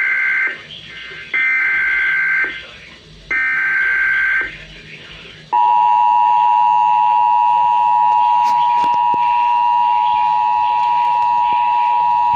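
Emergency Alert System SAME header: three rasping digital data bursts, about a second each and a second apart. About five and a half seconds in, the steady two-tone EAS attention signal starts, marking the start of a new alert.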